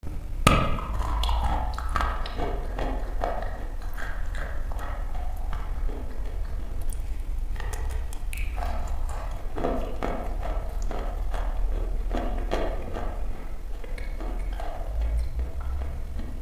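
Close-miked crunching of a slab of dry chalk being bitten and chewed: a constant run of crisp cracks and clicks, the loudest about half a second in, over a low steady hum.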